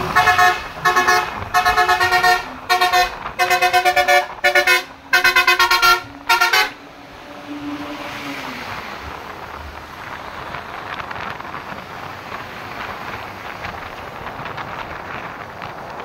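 Basuri multi-tone horn on a Nafit Trans Jetbus 5 SHD coach, very loud, playing a fast run of short chord blasts for about six and a half seconds. Then the coach passes with a steady rush of engine and road noise.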